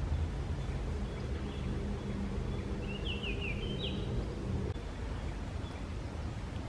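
Outdoor background noise with a steady low hum that stops about two-thirds of the way through. A bird sings one short phrase of quick up-and-down notes about three seconds in.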